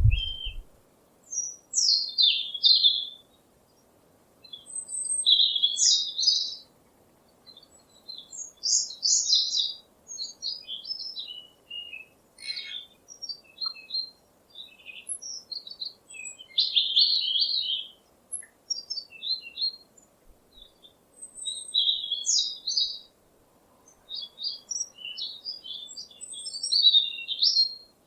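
A songbird singing in repeated short phrases of quick, high chirps and trills, each lasting about a second or two with brief pauses between them.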